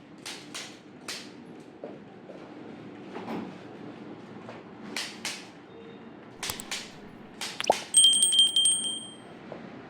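Chiropractic adjustment: soft rustling of hands and clothing, then a few sharp clicks and a quick run of popping joint cracks near the end, the loudest part, together with a brief high ringing tone.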